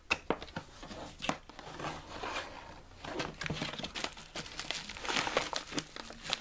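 Graphics-card box being unpacked: cardboard handled and plastic bubble-wrap packaging crinkling and rustling, with many irregular small clicks and crackles.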